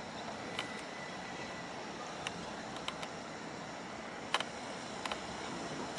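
Steady outdoor background hiss with several sharp clicks scattered at irregular intervals.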